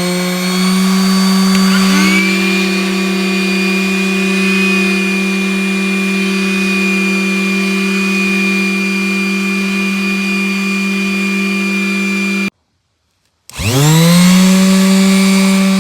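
A corded orbital sander and a vacuum cleaner running together on carpet, a loud steady motor whine, with a second motor spinning up about two seconds in. Near the end the sound cuts out for about a second, then the motors spin back up with a rising whine.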